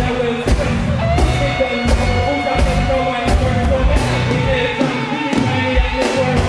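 Live reggae band playing electric guitar, bass guitar, drum kit and keyboard, with a male vocalist singing into a handheld microphone over the stage PA.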